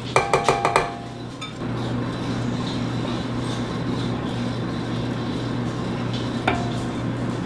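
A spoon taps against a bowl about six times in quick succession. About a second and a half in, an electric stand mixer starts and runs with a steady hum, its paddle beater turning through cake batter as flour is added.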